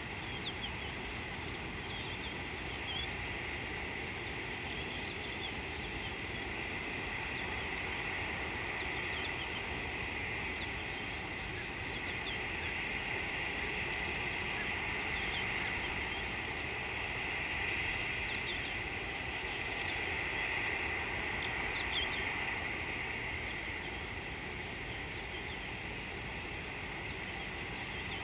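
Wild outdoor ambience of an insect chorus: a steady high buzz and a second, lower chorus that swells through the middle and then eases. Short bird chirps come now and then.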